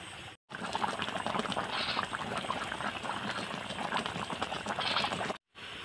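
Thick pangas fish curry simmering in a pan: a dense crackle of bubbling and popping. It starts after a brief silent cut about half a second in and stops abruptly near the end.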